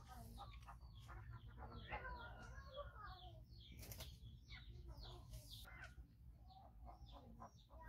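Faint chirping of small birds, many short high calls in quick succession, over a low steady hum.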